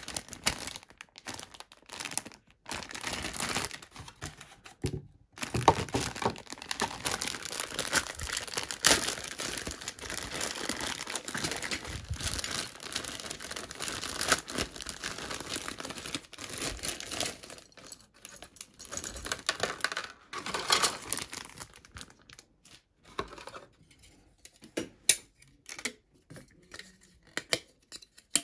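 Thin clear plastic bag crinkling and tearing as it is opened and pulled off pink plastic model-kit runners. The dense crinkling thins out about two-thirds of the way through into scattered clicks and rustles of the plastic parts being handled.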